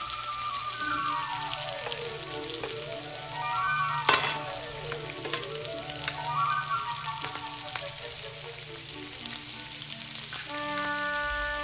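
Bell pepper pieces sizzling in butter in a cast-iron skillet, stirred with a wooden spoon, with one sharp knock about four seconds in. Light background music with runs of falling and rising notes plays over the frying.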